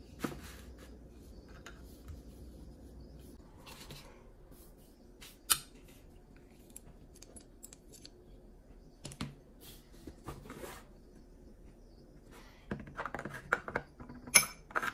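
Sharpening stones and the KME stone holder being handled during a stone change: scattered clicks, knocks and clinks of metal and stone, with a sharp click about five and a half seconds in and a busy run of knocks near the end.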